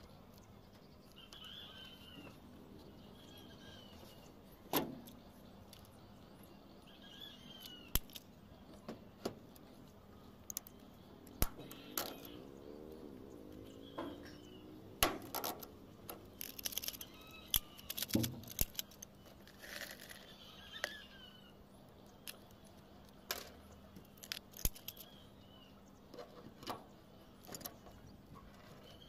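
Hand tools working galvanized corrugated roofing sheet: irregular metal clicks, clinks and scrapes as pliers grip and bend the cut metal. A few short bird chirps sound faintly in the background.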